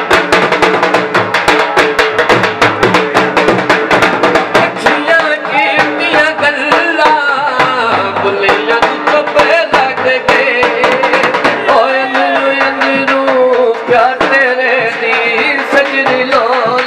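Dhol drum beaten in a fast, driving rhythm, with a winding, ornamented melody line played or sung over it from about five seconds in.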